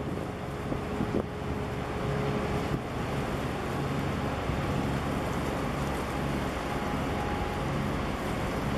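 Low, steady rumble of a large container ship under way, with wind buffeting the microphone and water washing.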